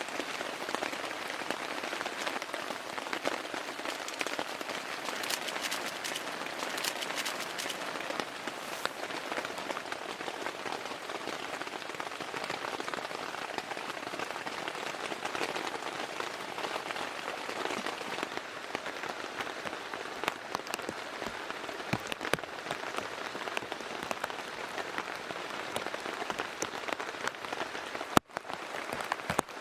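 Steady rain, with many separate drops ticking against a surface. There is a brief break about 28 seconds in, and the drop hits are louder after it.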